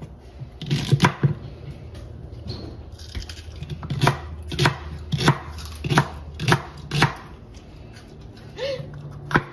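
Chef's knife chopping through a bundle of celery stalks onto a wooden cutting board: crisp chops, two about a second in, then a run of about two a second, then one more near the end.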